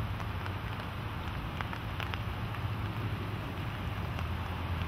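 Muddy flash-flood water rushing steadily down a wide sandy river channel: a continuous rushing noise with a steady low rumble underneath.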